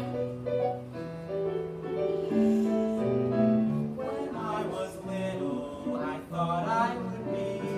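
Piano accompaniment track playing slow held chords, with a young performer's voice singing over it in the second half.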